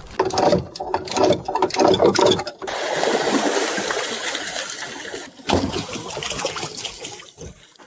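Water splashing and streaming off a fish cage hauled up full of live fish. Quick clattering splashes come first, then a steady rush of water in the middle, then scattered splashes again.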